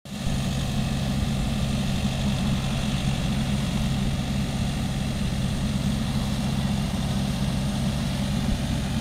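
Engines of a Yanmar AW70V combine harvester and a farm tractor running steadily, a low, even drone with no change in speed.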